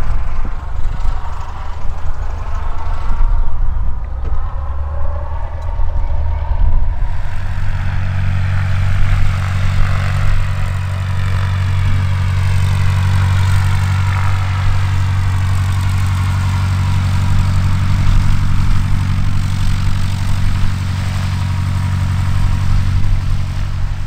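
Reims Cessna F150K's four-cylinder Continental O-200 engine and propeller running at low taxi power as the plane rolls by. About seven seconds in, the engine turns into a loud, steady hum and holds there.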